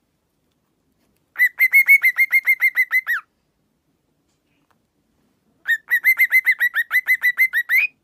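Cockatiel calling in two quick runs of short chirps, about seven a second. Each note is a brief whistle falling in pitch. The first run starts about a second and a half in, and the second runs near the end.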